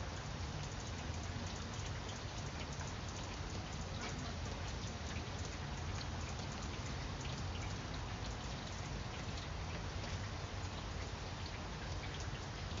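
Steady rain falling on broad grapevine leaves: an even hiss scattered with many small drop ticks, over a constant low rumble.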